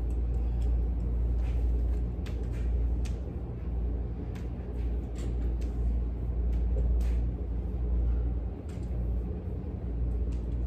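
A steady low rumble with irregular light taps and knocks, from a walking cane being set down and the slow footsteps of a man walking with it.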